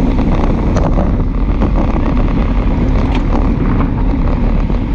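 Steady wind rumble on the microphone of a camera on a moving road bike, with road noise beneath.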